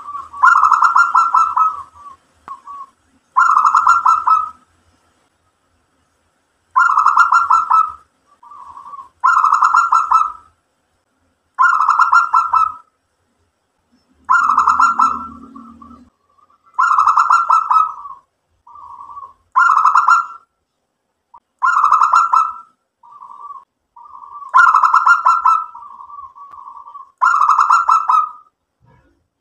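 Zebra dove (perkutut) cooing: a string of loud, trilled coo phrases about a second long, repeated every two to three seconds, some followed by short soft notes.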